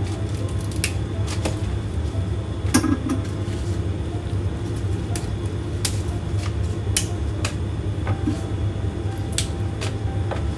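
Kitchen prep work: irregular sharp clicks and knocks of utensils against a board and dishes over a steady low hum.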